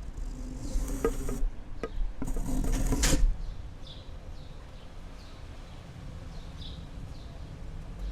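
A flying insect buzzing close by, passing twice in the first three seconds with the second pass the louder, then small birds chirping at intervals over a steady low background rumble.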